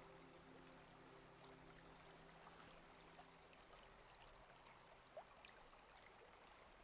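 Faint flow of a shallow river running over gravel, with a few soft ticks. Held low notes of background music fade out a few seconds in.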